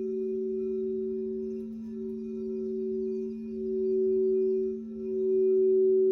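Crystal singing bowls ringing, two overlapping tones held without a break, their loudness swelling and fading in slow waves.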